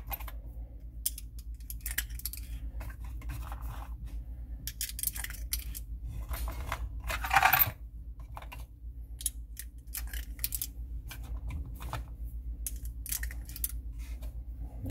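Brass .22 Magnum rimfire cartridges clicking and clinking one after another as they are picked from a box and pushed into a pistol magazine through a plastic speed loader, with one louder rattle about halfway through.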